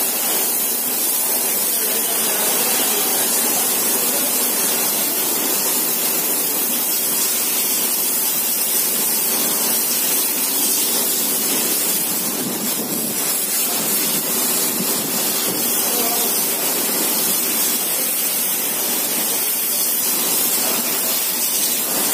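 Pressure washer's high-pressure water jet hissing steadily as it sprays onto a backhoe loader's tyre and bodywork.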